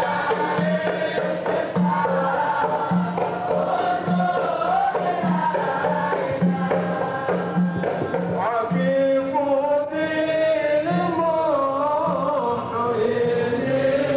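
Men's voices chanting an Arabic devotional qasida together, with a low regular beat about one and a half times a second under the first half. From about nine seconds in, the beat drops back and a clearer, sustained sung line comes forward.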